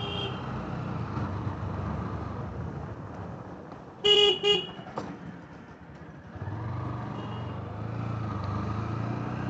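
Honda motorcycle engine running at low riding speed. Just past the middle the engine note drops away for about a second, then picks up again. About four seconds in, a horn gives two short beeps.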